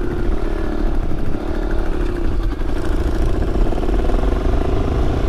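Four-stroke single-cylinder dirt bike engine running steadily at low speed on a muddy trail.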